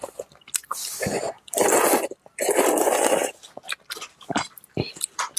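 Noodles slurped from a spoon of broth in two long noisy pulls, about a second and a half in and again just after two seconds. They are followed by chewing and small clicks of chopsticks on a metal pot.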